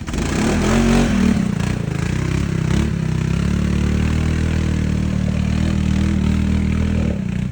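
ATV engine revving up sharply at the start, its pitch wavering for the first second or so, then running steadily under throttle and easing off just before the end.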